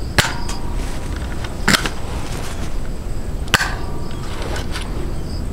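Nerf Trio three-barrel spring blaster firing foam darts one at a time: three sharp shots, roughly one and a half to two seconds apart.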